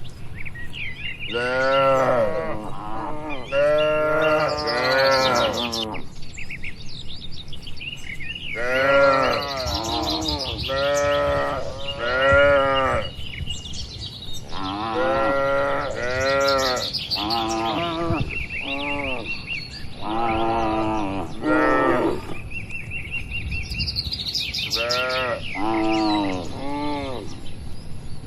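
Cattle mooing again and again, one call after another with short pauses, each call about a second long.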